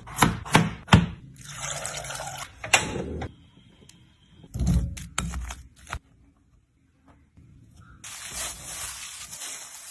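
Kitchen food preparation: several sharp knocks and thuds in the first seconds, then a steady hiss from about eight seconds in.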